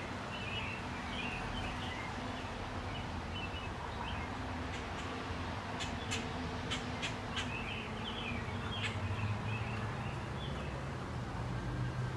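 Small birds chirping on and off over a steady low background rumble, with a quick run of sharp ticks about halfway through.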